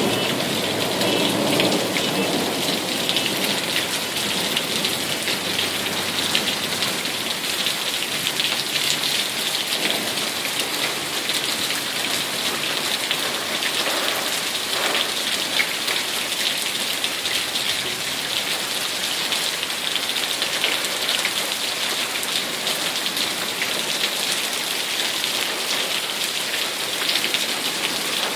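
Rain falling steadily during a thunderstorm, an even, unbroken hiss of rain on surfaces.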